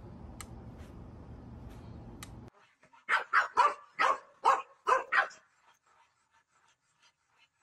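A faint low hum with a few light clicks, then, about three seconds in, a dog barking: about eight sharp barks in quick succession over two seconds, then stopping.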